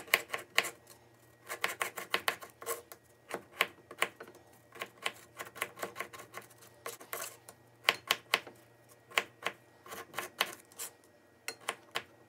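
Kitchen knife chopping garlic on a cutting board: quick runs of sharp taps, several a second, broken by short pauses.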